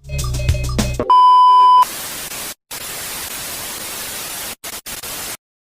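Opening of a mock Emergency Alert System broadcast. About a second of jumbled tones and clicks over a low hum, then a loud steady 1 kHz beep, then TV-style white-noise static with a few brief dropouts that cuts off suddenly.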